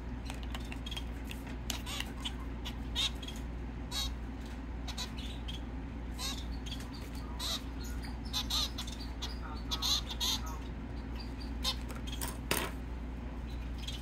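A young hand-fed finch chirping in short, high calls at irregular intervals over a steady low hum, with one sharper, louder sound near the end. The chirps are typical of a chick begging to be fed.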